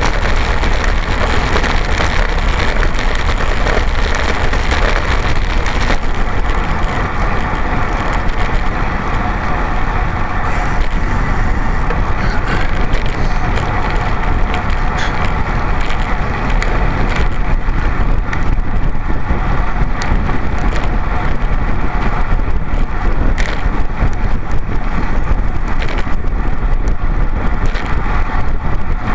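Steady rush of wind over a road-bike-mounted camera's microphone at racing speed, mixed with the hum of tyres on asphalt.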